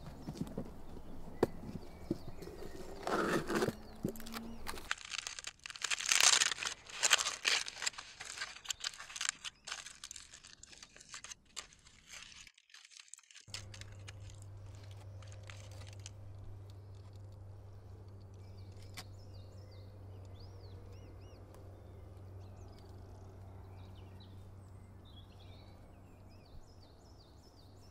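Aluminium foil crinkling and crackling in irregular bursts as a foil food packet is handled and opened. After a sudden second of silence, a steady low hum takes over, with faint high chirps over it.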